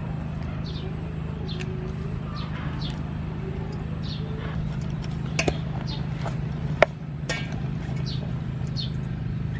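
Shredded vegetables being tossed by hand and with a wooden spoon in a stainless steel bowl, with two sharp knocks of the spoon against the bowl about five and a half and seven seconds in. Short bird chirps come now and then over a steady low hum.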